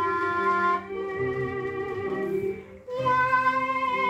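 Band music from a vintage Thai popular-song record: held melodic notes over a light accompaniment, the sound dipping briefly a little past halfway before the band comes back in.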